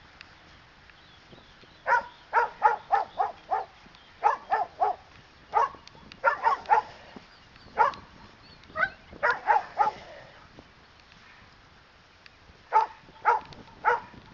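Standard poodle barking at a man agitating it for attack training, in rapid volleys of three to six barks. The barks stop for a couple of seconds, then a last volley comes near the end.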